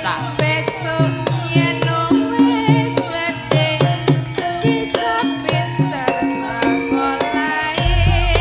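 Live Javanese gamelan music for tayub dancing: kendang hand-drum strokes keep a steady beat under ringing bronze metallophones, with a woman singing into a microphone. A deep bass tone comes in near the end.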